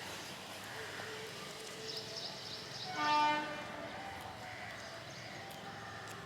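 A short, steady horn sounds once, about three seconds in, lasting under half a second, over a faint outdoor background with a few thin chirps.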